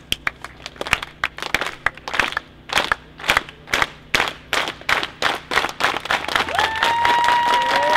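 Crowd doing a solidarity clap: separate unison hand claps that come faster and faster until they run together into continuous applause, with cheers and whoops joining near the end.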